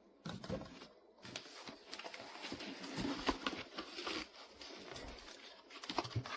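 A keyboard box and its packaging being handled and pulled open, with irregular scrapes and light knocks.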